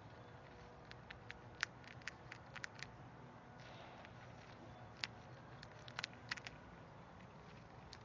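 Eastern chipmunk gnawing and cracking an in-shell peanut: faint, sharp little cracks and clicks, a quick run of them starting about a second in and another just past halfway.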